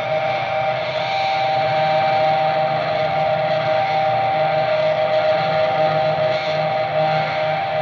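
Electric guitar drone played through effects and Orange amplifier stacks. Two held mid-pitched tones ring over a wash of hiss, with a low drone underneath, all steady and unbroken.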